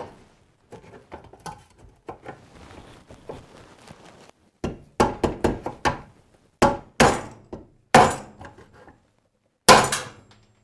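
Hammer blows on the shaft of a mini split heat pump's fan motor, trying to drive off a fan blade jammed on the shaft. Light knocking at first, then from about halfway a run of sharp strikes in quick groups, with a last hard blow near the end.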